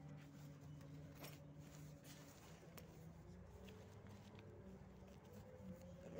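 Faint, steady hum of a Volzhanin-6270 city bus's engine heard from inside the moving bus. Its pitch steps up about two seconds in, a faint rising whine follows, and a few light clicks and rattles sound throughout.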